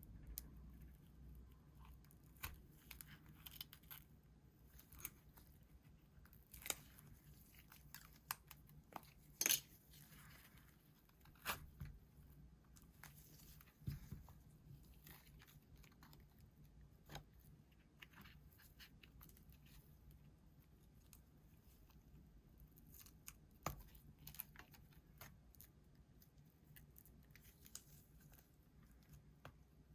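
Scattered small clicks and crackles at irregular intervals as the cracked back glass of a Samsung Galaxy S10 is pried and peeled away from its adhesive, with one sharper crack about a third of the way in. A faint low hum sits underneath.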